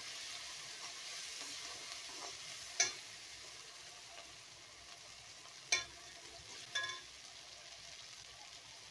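Chopped cluster beans, onion and tomato sizzling in hot oil in a kadai, a steady frying hiss that is strongest in the first few seconds while they are stirred. A metal ladle clinks against the pan three times.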